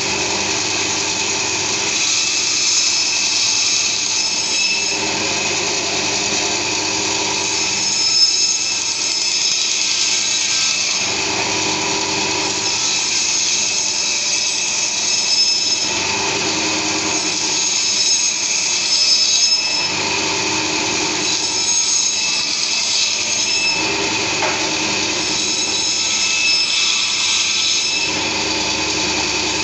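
Butcher's meat bandsaw running steadily as a mutton leg is pushed through the blade. Its tone changes about every three to four seconds as each round slice is cut.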